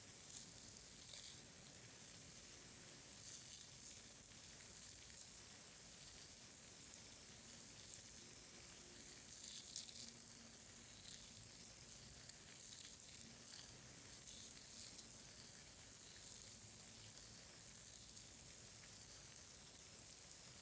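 Faint, close-up crackling with many small clicks, an ASMR trigger sound made right at a sensitive microphone.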